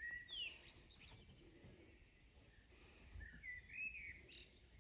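Faint birdsong: short chirps and whistles, a cluster near the start and another about three and a half seconds in, over quiet outdoor background.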